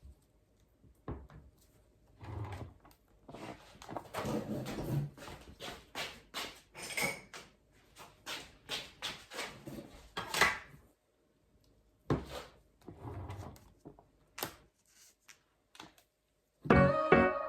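Irregular knocks, clicks and short rustles of things being handled and set down, like drawers and cupboard doors being opened and shut. About a second before the end, background music begins and becomes the loudest sound.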